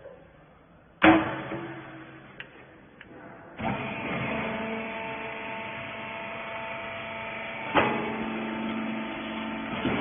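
Loud metal clang about a second in as the rag baler's loading lid is slammed shut. From about three and a half seconds the baler's electric motor runs with a steady hum as the press works, with a sharp clunk near eight seconds.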